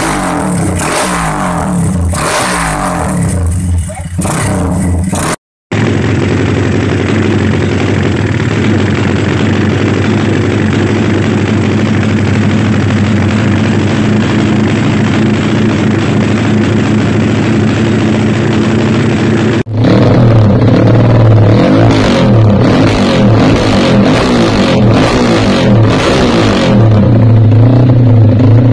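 Motorcycle engines running through aftermarket BSS stainless slip-on exhausts tuned for the 'helicopter' sound, three bikes one after another with abrupt cuts between them: the first revving up and down, the second idling steadily, and the third, louder, a four-stroke being revved with a strong low exhaust note.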